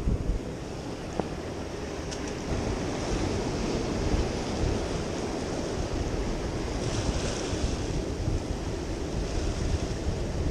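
Sea surf breaking and washing over jetty rocks, with wind buffeting the microphone; the wash swells up about seven seconds in and again near the end.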